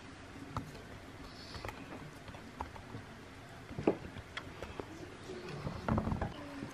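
Fruit slices being laid by hand onto cabbage-leaf dolma in an aluminium pot: scattered soft taps and clicks, with a cluster of louder knocks near the end.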